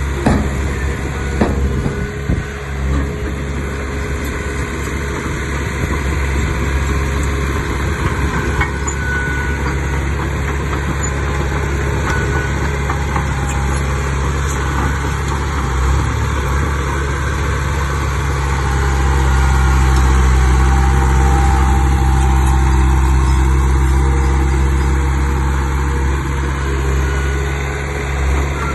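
Heavy diesel engine of earthmoving machinery running steadily, growing louder about two-thirds of the way through and easing back before the end. A few knocks sound in the first few seconds.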